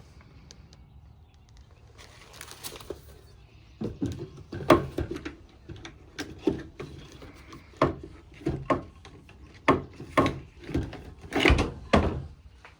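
A run of irregular knocks and thumps, about one a second, starting a few seconds in after a quiet start.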